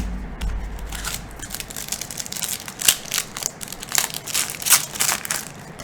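Trading cards and their foil pack wrapper being handled: a run of short, sharp crinkles and rustles, with a dull bump at the start.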